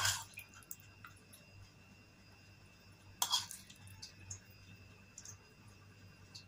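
A metal spoon scooping a moist filling and spreading it onto bread slices: two short soft scrapes about three seconds apart, with faint clicks and squishes between, over a faint steady hum.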